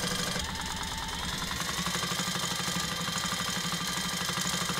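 Sailrite Fabricator industrial compound-walking-foot sewing machine, driven by its Workhorse servo motor, stitching at high speed through a thick layered assembly with webbing on top: a rapid, even run of needle strokes.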